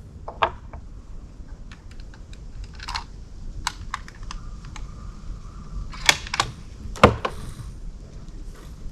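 A string of irregular sharp clicks and light metallic knocks from handling a rifle between shots, the loudest two about six and seven seconds in.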